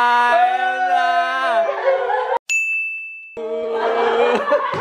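Excited voices holding a long, drawn-out cry for nearly two seconds, then a short, high electronic ding, then another briefly held cry.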